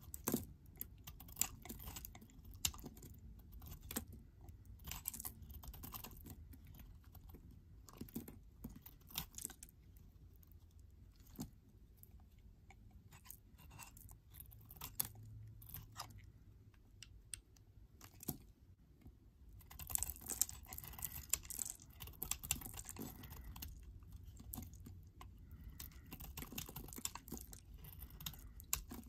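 Snap-off utility knife blade shaving chunks and curls from bars of soap: a run of crisp, sharp crackles and scrapes, with a denser stretch of scraping about two-thirds of the way through.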